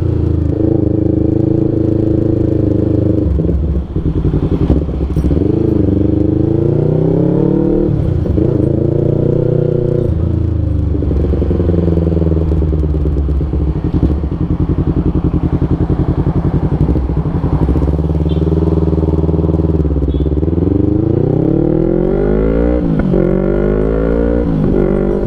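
Yamaha MT-25's 250 cc parallel-twin engine through an R9 H2 full-system aftermarket exhaust, riding: the revs climb and fall over and over as the bike pulls away and shifts up, with the pitch dropping sharply at each gear change. Near the end the revs rise and fall several times in quick succession.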